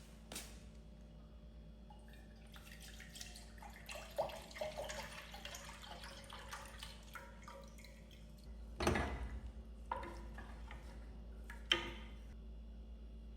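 Water dripping and trickling with a patter of small clicks and splashes, and a few sharper knocks; the loudest knock comes about nine seconds in.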